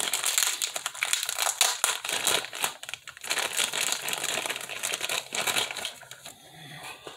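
Small clear plastic bag crinkling as it is opened and handled, a dense run of crackles that thins out and gets quieter near the end.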